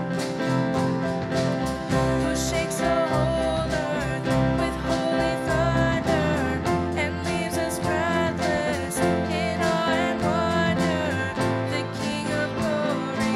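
Worship band music: drums, bass, guitar and keys with singing over a steady beat.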